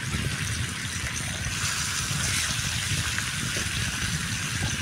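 Pork belly slices sizzling steadily on a hot non-stick grill pan with no oil, a continuous hiss over a low, uneven rumble.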